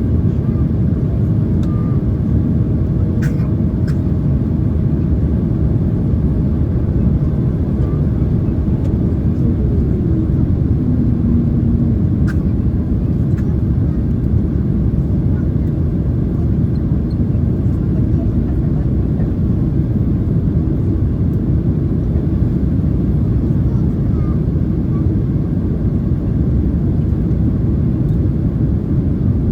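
Steady low rumble inside a Boeing 767-300ER's passenger cabin in flight, engine and airflow noise, with a faint steady hum and a few light clicks.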